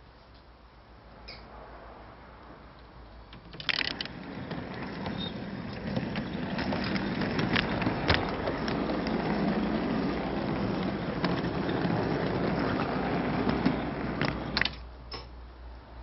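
O gauge model train carrying the camera wagon running along the track: a steady rolling rumble with scattered clicks over rail joints. It starts with a clatter about four seconds in and stops shortly before the end.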